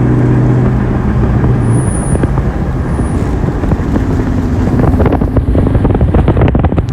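A Mustang SVT Cobra's supercharged 4.6-litre V8 hums steadily as the car rolls slowly. Two brief high-pitched brake squeaks come about two and three seconds in, which the occupants place at the front right corner. A run of rapid clicking and rattling follows near the end.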